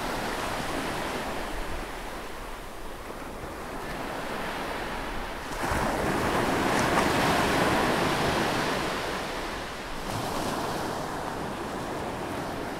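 Incense charcoal tablet fizzing and hissing as it catches light. The hiss swells about halfway through, then eases off.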